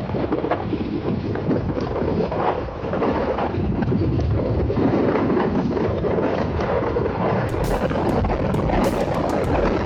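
Wind buffeting the microphone over a steady vehicle rumble. About seven and a half seconds in, a run of sharp clicks starts.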